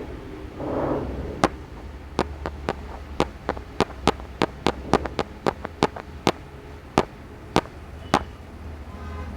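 A rapid, uneven run of about eighteen sharp clicks during a chiropractic adjustment, roughly three a second, stopping after about eight seconds. A short rush of breath-like noise comes about a second in.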